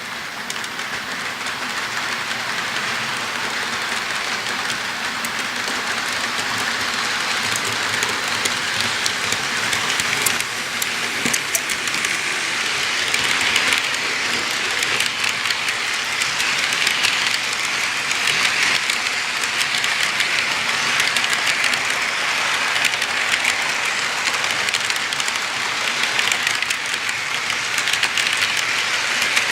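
Railcars rolling past on steel rails: a dense, steady rattle of wheels with fine clicking. It builds over the first few seconds and then holds steady.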